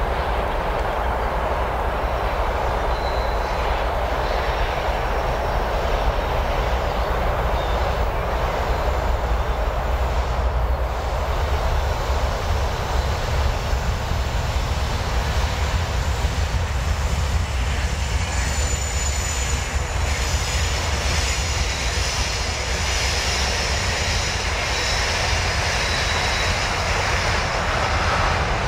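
Diesel engines of a 2TE116UD twin-section freight locomotive running steadily while hauling a freight train, a deep low drone with engine noise above it.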